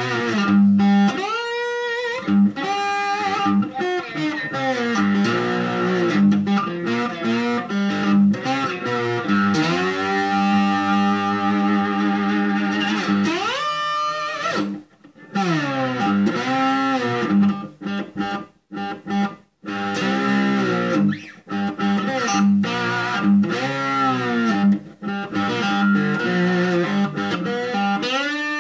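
Homemade three-string electric lap slide guitar played with a bar. Notes glide up and down over a steady low drone string, with a couple of short breaks past the middle.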